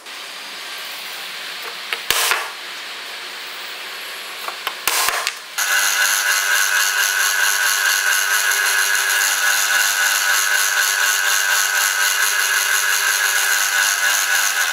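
Drill press cutting a hole in a steel C-channel with a twist drill bit: after some steady noise and a few sharp knocks, the bit bites into the steel about five and a half seconds in and gives a loud, steady, high whine with several tones until the end.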